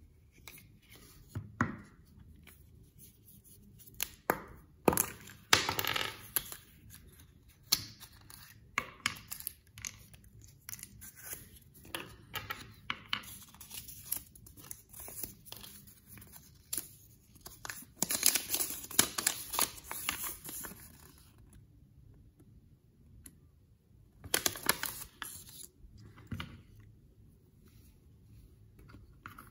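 A small plastic toy wrapper being torn open and crinkled, in several bursts with the longest in the middle. Between the bursts, sharp clicks of hard plastic as the yellow Kinder Surprise capsule is opened and the small toy parts are handled and snapped together.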